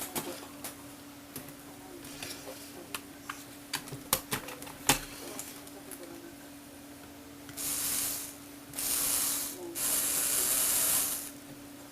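Plastic clicks and knocks from a Lego Technic car lift mechanism being worked, with one sharp knock a little before the middle. Later come three short bursts of hissing, whirring noise, each about a second long.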